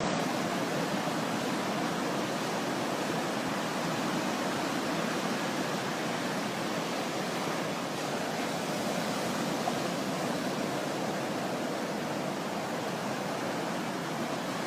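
Steady wash of sea surf, an even rushing noise without distinct breaking waves.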